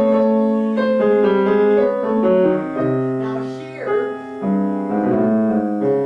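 Grand piano played: a slow melodic passage of held notes and chords over sustained bass notes.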